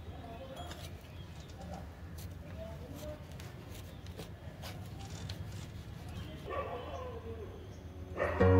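Faint scraping and knocking of a small scraper working soil loose inside a plant pot, with short animal calls in the background. Background music starts just before the end.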